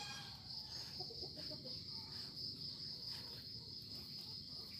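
Steady high-pitched drone of insects, with faint clucking of chickens in the background.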